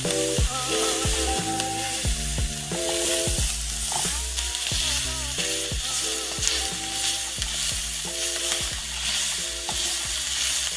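Soaked rice vermicelli and egg noodles sizzling in a hot pan while being tossed with a metal spatula, a steady sizzle broken by frequent short scrapes and clinks of the spatula on the pan. Background music with slow chord changes plays underneath.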